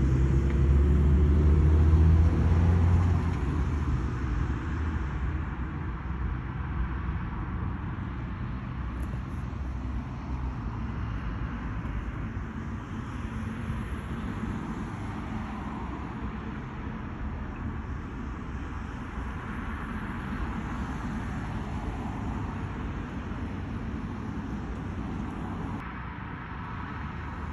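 Road traffic. A vehicle with a low engine drone passes close in the first few seconds and fades away, leaving a steady hum of traffic.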